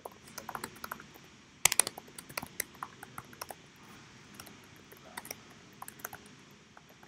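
Typing on a computer keyboard: irregular key clicks, with a louder quick run of keystrokes just under two seconds in.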